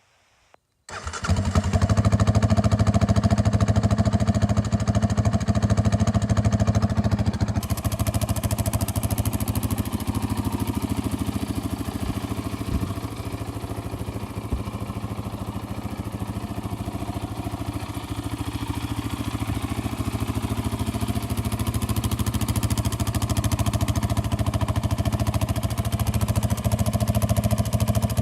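Yamaha Raptor 700 single-cylinder ATV engine idling steadily through a Barker's dual exhaust with a Fuel Customs intake. It comes in abruptly about a second in.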